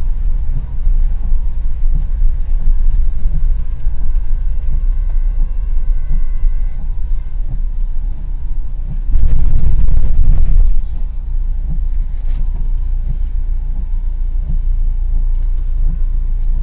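Low, steady rumble of a car's engine and tyres on a wet road, heard from inside the cabin. About nine seconds in, a louder rushing noise swells for roughly two seconds.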